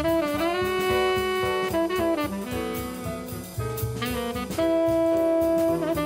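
Jazz background music: a saxophone plays held notes over a drum kit keeping a steady beat.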